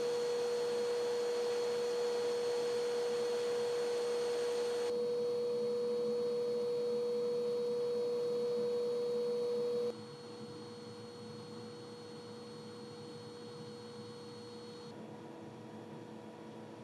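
Vacuum cleaner running steadily, recorded through a microphone and played in four back-to-back takes of about five seconds each: a hissing rush with a strong steady motor whine. The first two takes are the full-level noise. About ten seconds in it drops sharply quieter, the noise reduced by about 7–8 dB by a portable vocal booth's sound-absorbing walls around the microphone.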